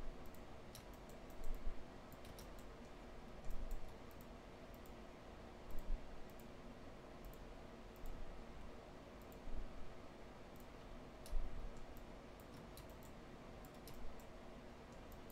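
Scattered clicks of a computer mouse and keyboard, irregular and a second or two apart, over faint steady room noise.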